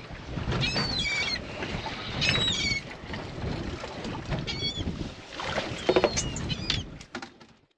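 Wind and water noise around a small boat at sea, with gulls calling overhead in several short bursts of chirpy, stepping cries. The sound cuts off abruptly near the end.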